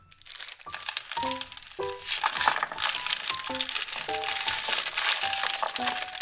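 Thin plastic bag of frozen dumplings crinkling and crackling as it is handled and the dumplings are tipped out, under background music with short separate notes.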